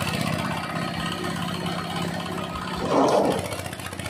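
Engine-driven coconut-husk shredder running steadily, with a brief louder burst about three seconds in.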